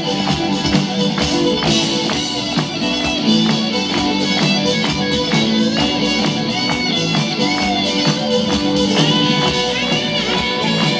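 Live rock band playing an instrumental passage: electric guitars over a steady drum beat, with a few gliding high notes near the end.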